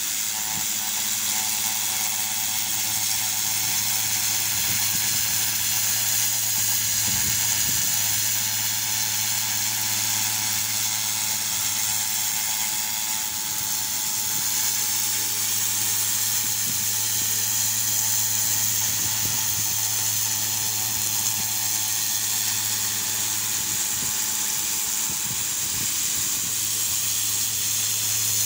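Pressure washer running steadily: a constant motor-and-pump hum under the hiss of the high-pressure water jet striking a stone wall.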